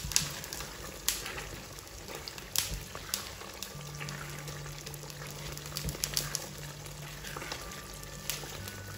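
Chicken in a thick sauce simmering and bubbling in a stainless steel pan while a spatula stirs it, with sharp clicks and knocks of the spatula against the pan scattered throughout.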